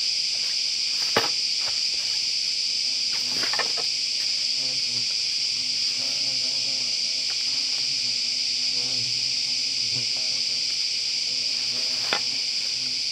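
A loud, steady, high-pitched chorus of insects, with a few sharp knocks of bamboo poles being handled and laid down: one about a second in, a couple around three and a half seconds, and one near the end.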